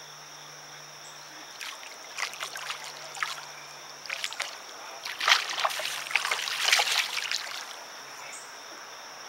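A hooked catfish thrashing at the water's surface: a run of irregular splashes over several seconds, loudest about five to seven seconds in.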